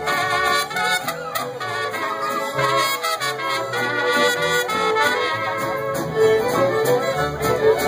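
Live mariachi band playing, with two trumpets leading over violins, guitars and a harp.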